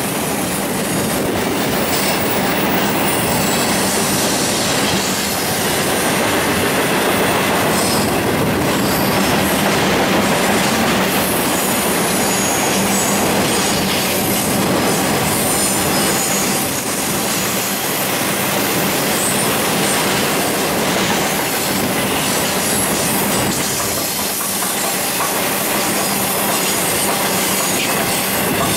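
Florida East Coast Railway double-stack intermodal freight train rolling past on a curve: a steady, loud rumble and clatter of steel wheels on rail, with some high wheel squeal.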